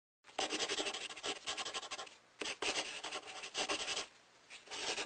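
Pen scratching across paper in long writing strokes, with brief pauses about two seconds in and again about four seconds in.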